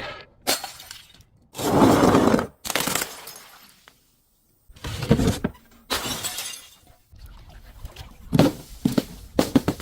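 Glass bottles shattering: a series of separate smashes, the loudest about two seconds in, with a run of sharp clinking breaks near the end.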